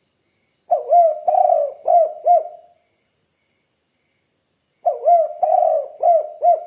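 Spotted dove cooing: two phrases of four coos each, about four seconds apart, the second running on to the end.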